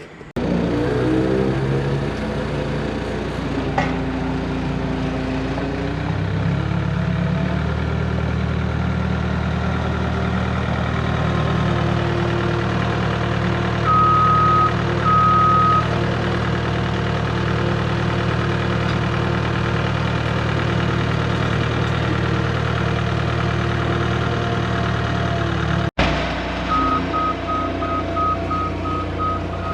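Skid steer engine running steadily, revved up a few seconds in. Its backup alarm gives two long beeps midway and then a steady run of short beeps near the end as the machine reverses.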